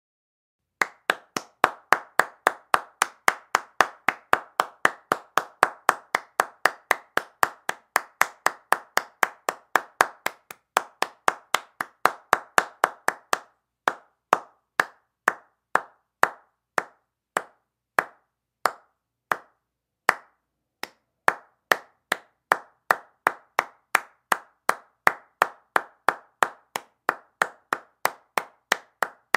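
One person clapping their hands. The claps start about a second in at a quick pace of roughly three to four a second, slow to about one a second midway with a few gaps, then speed up again toward the end.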